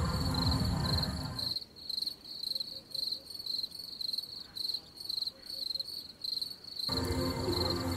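Crickets chirping in a steady, high, even rhythm of about three chirps a second. A low, steady rumble runs under them for the first second and a half, stops abruptly, and returns about a second before the end.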